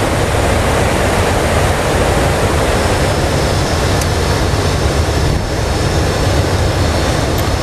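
Steady rushing noise on the flight deck of an Airbus A320 in flight, with a low rumble underneath: airflow and ventilation noise during the descent.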